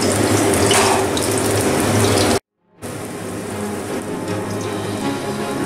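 Batter-coated raw banana slices sizzling in hot oil in a kadai over a low flame. The sizzle cuts out for a moment a little over two seconds in, then resumes slightly quieter.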